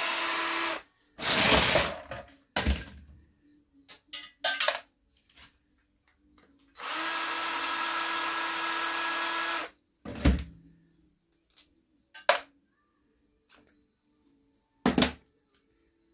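Cordless drill-driver with a long screwdriver bit running with a steady whine, unscrewing a plastic heater housing; it stops under a second in. A rough rattling burst and a few sharp clicks follow. About seven seconds in the drill runs again for some three seconds, then several sharp knocks as parts are handled.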